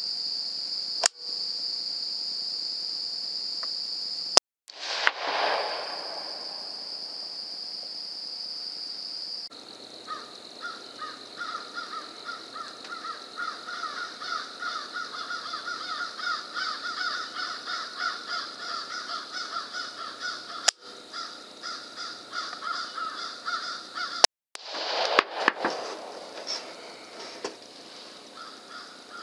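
Two loud rifle shots, most likely a 300 Blackout, about twenty seconds apart. Each is a sharp crack followed by a second or so of falling echo. Under them is a steady high night-insect trill at first, then a pulsing chorus of chirping calls.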